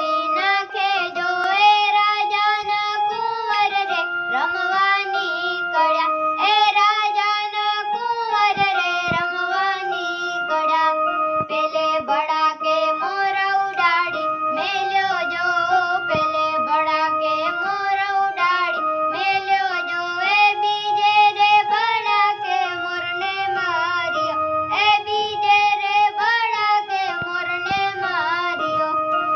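A boy singing a song in a high child's voice while playing an electronic keyboard, the keyboard holding steady notes that step from one pitch to the next under his wavering melody.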